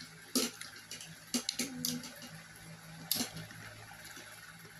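Wet eating sounds: chewing and lip smacks with a few short sharp clicks, the loudest about three seconds in, as fish and rice are eaten by hand.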